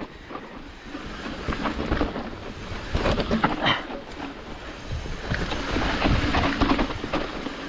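Hardtail mountain bike riding down a dirt trail: tyre noise and a stream of rattling knocks over bumps, with wind buffeting the microphone.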